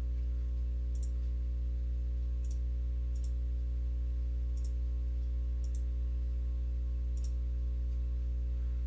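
Computer mouse clicking faintly about six times, a second or so apart, while edges are selected for a chamfer in CAD software. A steady low electrical hum runs underneath.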